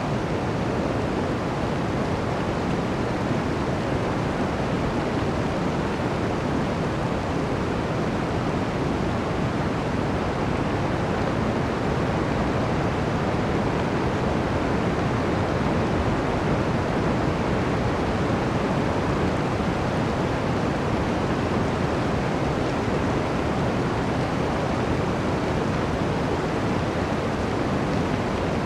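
Blizzard wind blowing steadily through a forest: a dense, even rushing noise that holds its level throughout, with no distinct gusts.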